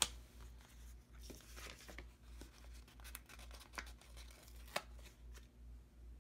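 Paper planner stickers being peeled off their backing and the sticker sheets handled, a soft tearing and crinkling with scattered small clicks. There is a sharper tick right at the start and another just before 5 seconds in.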